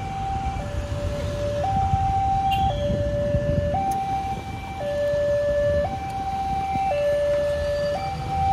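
Railway level-crossing warning siren sounding a steady two-tone hi-lo alarm, each tone held about a second, over the low rumble of road traffic. It warns that a train is coming and the automatic barrier is about to close.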